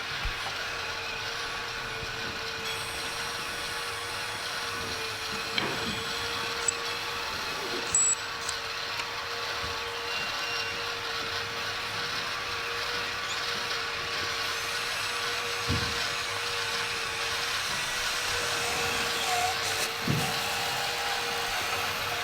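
Radio-controlled scale construction machines running: a steady, unchanging whine of small electric motors and gearboxes over a general mechanical hum, with a few short clicks and knocks.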